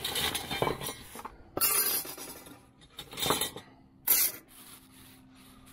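A plastic shopping bag rustling and crinkling in four bursts as a hand rummages through it, with galvanized metal joist hangers and brackets clinking together inside.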